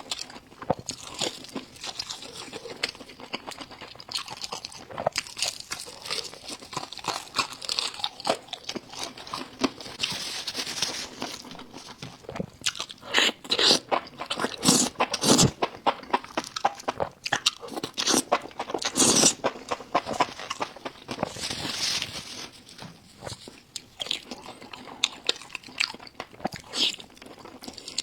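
Someone biting and chewing crisp, crunchy food: a dense run of sharp crunches, loudest about halfway through.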